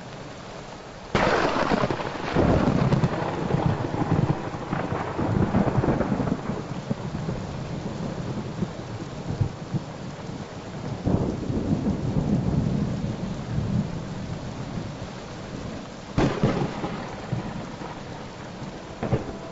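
Thunderstorm: steady rain with claps of thunder that roll off into long rumbles, a loud one about a second in, another around eleven seconds and a sharp crack at about sixteen seconds.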